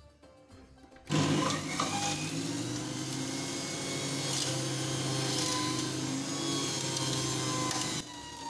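Electric centrifugal juicer switched on about a second in, its motor running with a steady hum while beetroot is pressed down the feed tube and shredded into juice. The level drops sharply about half a second before the end.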